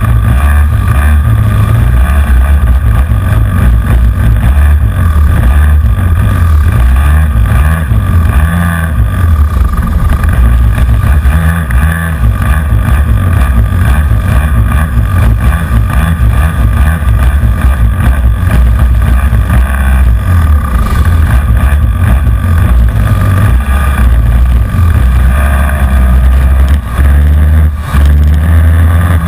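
Rotax Mini Max 125cc two-stroke kart engine at racing speed, heard onboard, running loud with its pitch rising and falling as the driver comes on and off the throttle through the corners. Other karts run close ahead.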